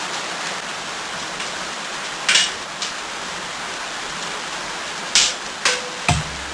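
Steady rain hiss, with five short sharp clicks and knocks scattered through it, the last one with a low thud.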